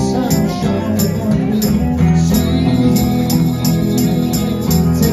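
Live band playing a song: two strummed acoustic guitars keeping a steady rhythm over an electric bass, with a man's voice singing at the microphone.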